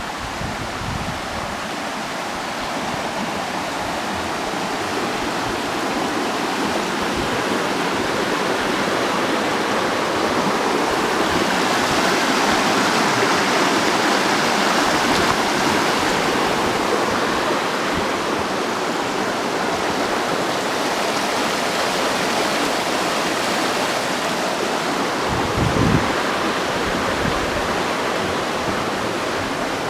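A rushing mountain stream, a steady wash of water that grows louder around the middle and eases a little after. A single low thump near the end.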